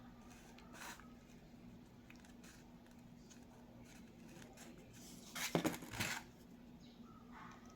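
Faint handling noises of small objects, with a brief rustling scrape about five and a half seconds in, over a steady low hum.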